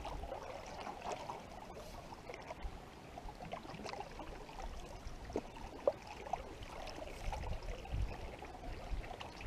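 Canoe paddle strokes through calm lake water: the blade dipping and pulling, with small splashes and drips. Some low wind buffeting on the microphone near the end.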